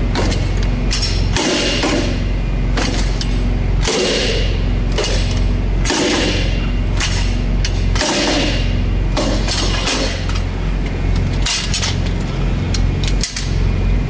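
Repeated metallic clanks and scrapes, roughly one a second at irregular intervals, from a long steel bar being handled against a semi-trailer. Under them runs the steady low hum of an idling truck.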